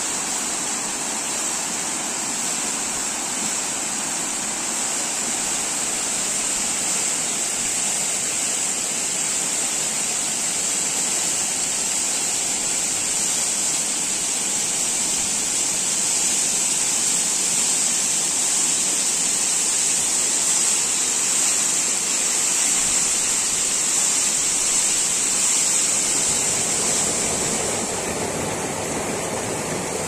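Large waterfall in full spate with snowmelt, a steady rush of falling water. Near the end the hiss eases and the sound turns lower.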